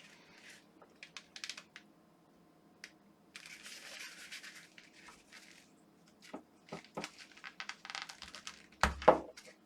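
Plastic housing of a Philips Sonicare toothbrush handle creaking, scraping and clicking as it is squeezed and pried to force out the stuck internals, with a longer scrape in the middle and a louder knock near the end.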